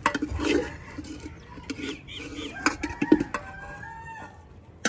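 A rooster crowing, a long call of about two seconds with a bending pitch, with chickens clucking around it.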